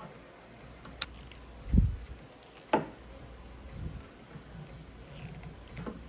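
Workshop handling sounds: a sharp click about a second in, then two dull knocks, as stray steel-mesh wire ends are trimmed off a plastic mower grass catcher.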